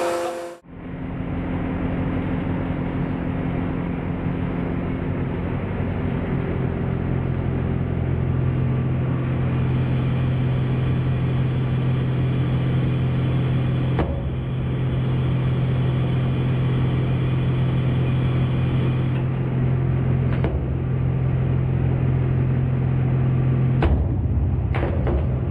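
A 500-ton hydraulic press runs with a steady low hum and rumble as its ram crushes a stack of books. A few short sharp cracks come through, about halfway, again a few seconds later, and near the end.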